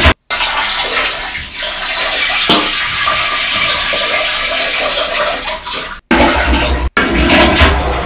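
A recording played back through a phone voice-changer app's megaphone effect: a loud, harsh rushing noise with no clear voice in it, broken by short dropouts about six and seven seconds in.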